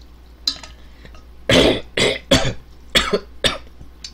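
A man coughing about five times in quick succession, short sharp coughs bunched into a fit partway through, with a few faint clicks before them.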